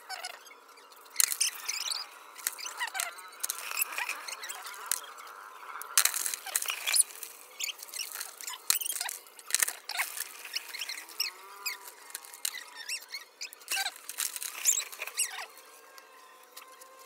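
Close handling noise from gloved hands working among plastic buckets and crabs. Irregular scrapes, rustles and clicks, with short squeaky rubbing sounds here and there.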